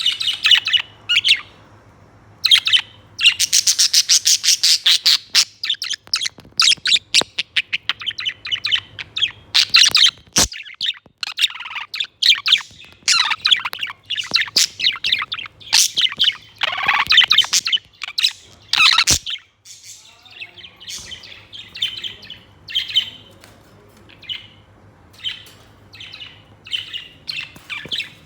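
Budgerigar chirping and chattering in quick, rapid runs, busiest in the first two-thirds and sparser and quieter near the end. Two sharp clicks cut through the chatter around the middle.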